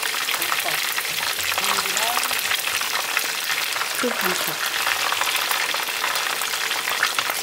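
Sliced garlic frying in oil in a pan: a steady, dense crackle of sizzling.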